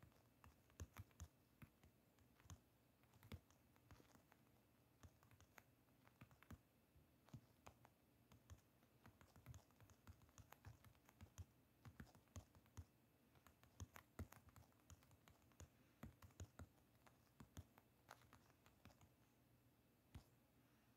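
Typing on a smartphone's on-screen keyboard: a faint, rapid, irregular run of small taps and clicks, several a second, with short pauses between words.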